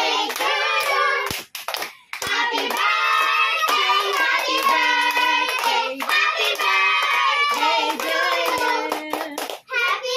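A group of children singing a birthday song together, with hands clapping along, and a short break in the singing about two seconds in.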